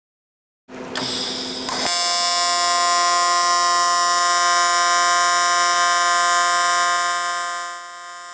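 AC TIG welding arc on aluminum from a Longevity Tigweld 200EX set to 175 Hz. It strikes about a second in with a brief rough crackle, settles into a loud steady buzz, and turns quieter near the end.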